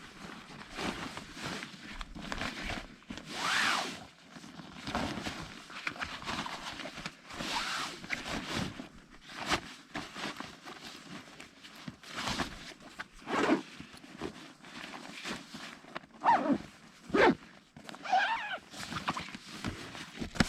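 A rolled canvas swag tent being pushed and slid into its stuff sack: heavy fabric rustling and scraping in irregular bursts, with a few sharp knocks and short squeaks.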